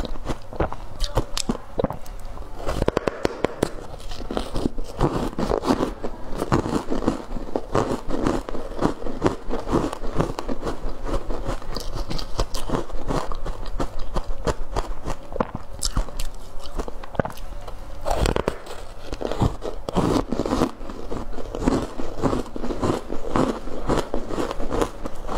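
A person biting and chewing a block of ice coated in matcha powder, with a continuous run of crisp crunches and crackles as the ice breaks between the teeth.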